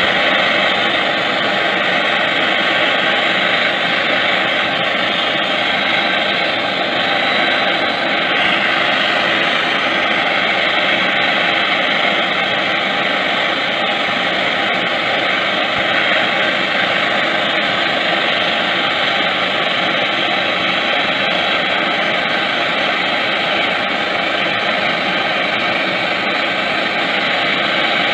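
Brazing torch flame hissing steadily as a refrigerant leak in an air-conditioner's copper line is brazed shut.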